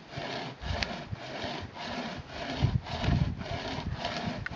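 Chain Mate hand chainsaw, a cutting chain pulled back and forth by its two handles, sawing through wood. Each stroke rasps in an even rhythm of about two to three strokes a second.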